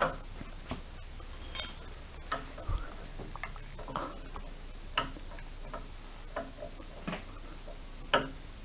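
Irregular light metallic clicks and taps as a bicycle pedal is turned by hand to thread it onto the right crank of a magnetic indoor cycling bike.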